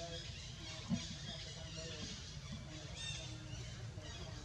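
Outdoor ambience: birds chirping and faint distant voices over a low rumble, with a single short knock about a second in.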